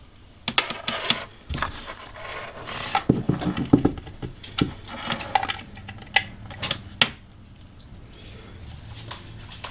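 Handling noises from a USB charging cord and a plastic battery charger being turned over in the hands: a run of irregular clicks, taps and rubs, thinning out after about seven seconds.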